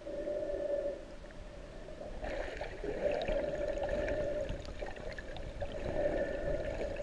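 Underwater sound picked up through a camera housing: a wavering steady hum that fades and returns, over water noise with small scattered clicks.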